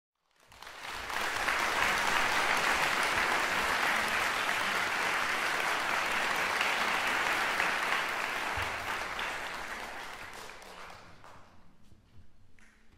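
Audience applauding, swelling up within the first second, holding steady, then dying away over the last few seconds.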